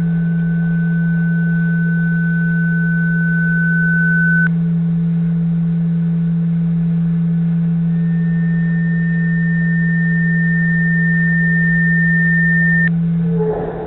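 Loud, steady electronic hum with a thin, high whistling tone over it for the first four and a half seconds. A second, slightly higher whistling tone comes in at about eight seconds and stops shortly before the end. The hum starts suddenly and cuts off abruptly near the end.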